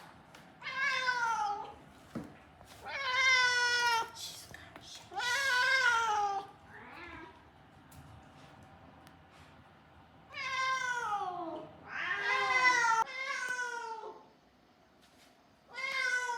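Siamese-mix cat meowing loudly and insistently: about seven long, drawn-out meows, each falling in pitch, some coming back to back. It is the persistent crying of a cat that is not settling into life confined to a room.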